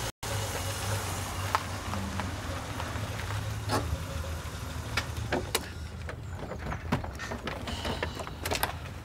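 A motor vehicle's engine running with a steady low rumble, and scattered light clicks and knocks over it.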